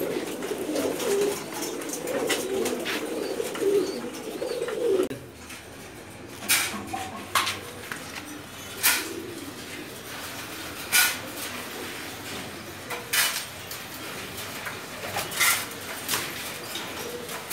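Domestic pigeons cooing together in a loft for the first five seconds or so. Then the cooing drops away and about seven sharp clatters follow, a second or two apart, from a plastic bucket being handled at wire-mesh cages.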